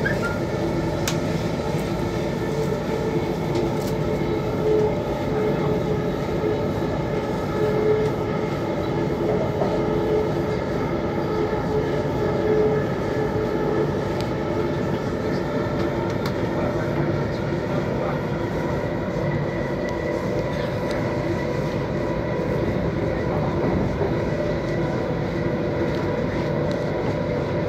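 Delhi Metro electric train running at speed, heard from inside the carriage: a steady rumble of wheels on rail with a constant humming tone over it.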